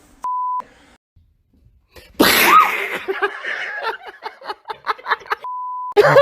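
A censor bleep (a short steady beep), then about two seconds in a sudden loud scream of fright, followed by a quick run of short breathy vocal bursts. Another censor bleep comes near the end.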